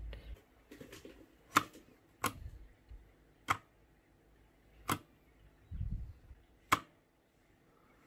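Keys pressed one at a time on an IKBC Poker 2 60% mechanical keyboard with Cherry MX Red switches. About five sharp, separate clacks come a second or more apart, with a few lighter taps near the start.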